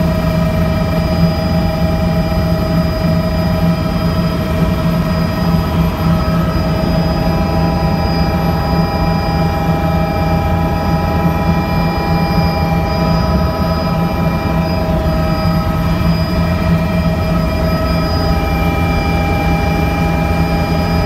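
Helicopter in flight heard from inside the cabin: a loud, steady drone of engine and rotors, a constant low hum under several steady higher whining tones.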